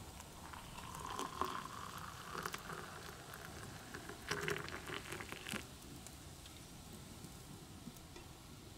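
Hot water poured from a stainless steel kettle into a ceramic mug of instant drink powder, splashing and frothing in the cup. The pour stops about two-thirds of the way through.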